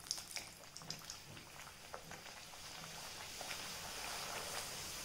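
Puri deep-frying in hot oil: sizzling with scattered sharp crackles at first, settling into a steadier hiss that grows a little louder towards the end.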